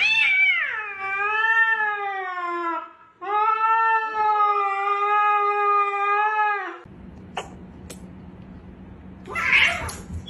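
Ginger cat yowling at a dog through a glass door: two long, loud, wavering calls, with a short break about three seconds in. A short, loud, noisy burst follows near the end.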